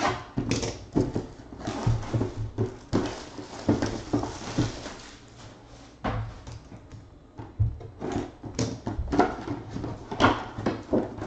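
Cardboard product boxes being opened and handled by hand: a tear strip pulled, packaging rustling, and cardboard scraping and knocking on the tabletop.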